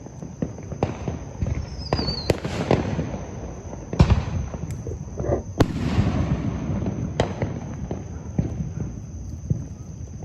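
Fireworks going off: irregular sharp bangs and pops with echoing tails, the loudest about four seconds in, and a brief falling whistle about two seconds in.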